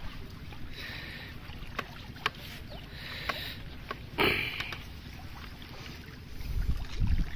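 Water splashing and sloshing with scattered small knocks, and one louder splash about four seconds in.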